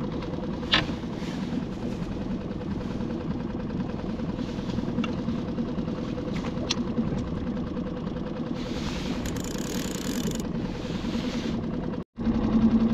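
Skiff's outboard motor idling with a steady low hum, with a brief hiss about two-thirds of the way through. Near the end the sound drops out for an instant and the engine hum comes back louder.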